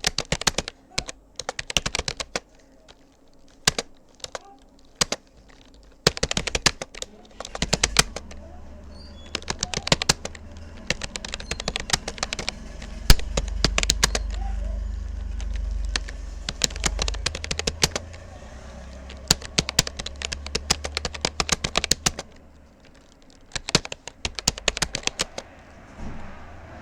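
Rapoo computer keyboard being typed on in quick runs of key clicks broken by short pauses. A low steady rumble sits underneath through the middle stretch.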